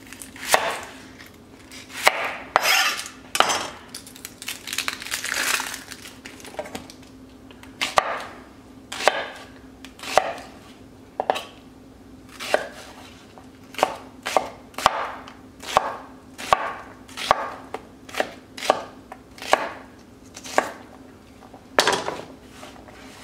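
Chef's knife dicing an onion on a wooden cutting board. First come a few drawn slicing strokes, then a run of steady chops, the blade knocking the board about twice a second.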